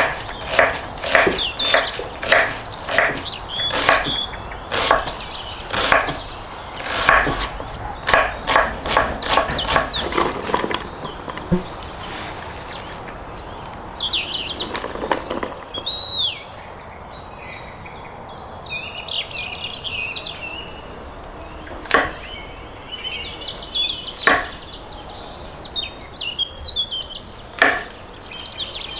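Chopping on wood, a quick run of sharp strikes about three a second, for the first ten seconds or so. Then birds singing and chirping, with a few single knocks.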